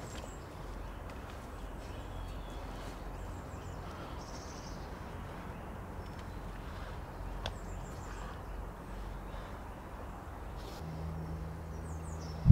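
Woodland ambience: a steady low background rumble with faint, scattered bird chirps. Near the end a low steady hum comes in.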